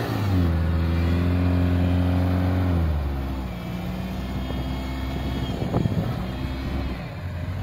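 Toyota Hilux Mk3 pickup's engine held at high revs while bogged in deep mud, then the revs fall away about three seconds in and settle lower, easing off further near the end. A short knock sounds a little before the end.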